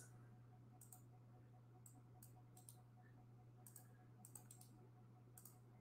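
Faint, scattered computer keyboard and mouse clicks, about ten irregular taps while a name is typed into a form, over a faint steady low hum.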